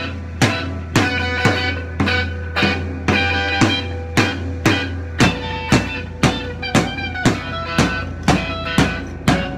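Live drum kit played with a steady beat of about two hits a second, over electric guitar.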